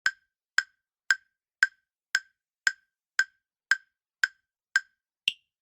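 Quiz countdown timer sound effect: ten evenly spaced ticks, about two a second, followed by one higher-pitched tick near the end.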